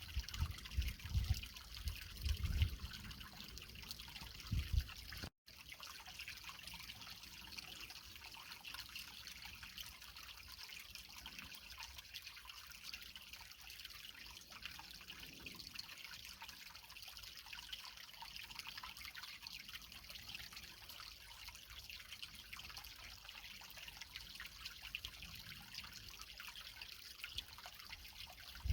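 A small creek trickling over rocks, with a steady hiss of running water. For the first five seconds loud low rumbling bursts sound underneath. They end at a brief dropout, and after it the trickle runs on alone.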